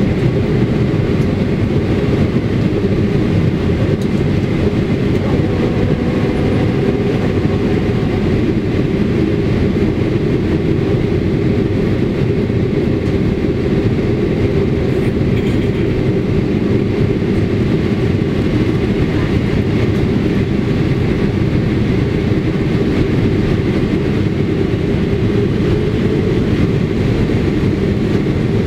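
Steady cabin noise inside a Swiss Boeing 777-300ER on approach: the low drone of its GE90-115B engines blended with rushing airflow, heard through the cabin wall at a window seat.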